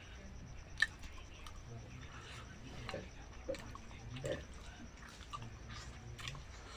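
Soft chewing and mouth clicks of someone eating gulgula, fried sweet dough fritters, with a sharp click about a second in.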